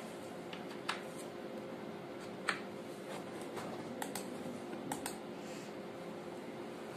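Scattered clicks of a computer mouse and keyboard keys, several over a few seconds, over a faint steady hum.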